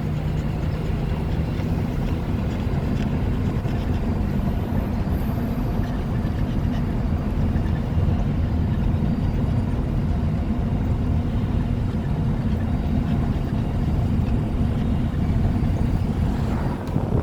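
Car engine and tyre road noise heard from inside the cabin while driving at a steady speed.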